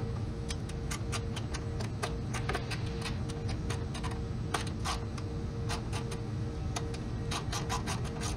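Ratchet socket wrench clicking in short, irregular runs as a fender mounting bolt is tightened, over a steady low hum.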